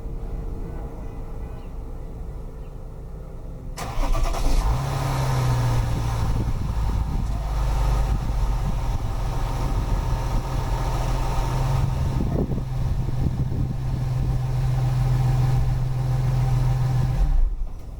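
Audi A6 C6 estate's engine starting about four seconds in and then running steadily with a low hum, which stops abruptly near the end.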